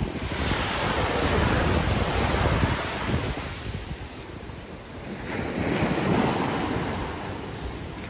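Surf washing up on the beach in two swells, one at the start and another about five seconds later, with wind buffeting the microphone.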